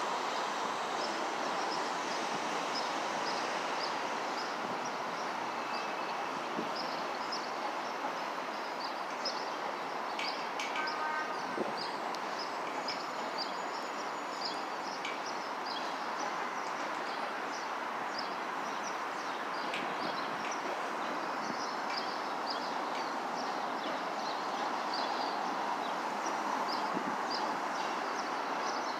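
Steady rolling noise of a slow Union Pacific freight train going by, with many small birds chirping over it.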